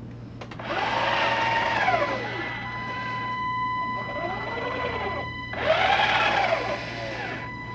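TR2 robot arm's actuator motors whining as the arm drives between positions, twice, the pitch rising and then falling with each move. Between and after the moves a steady high-pitched buzz as the actuators hold their position.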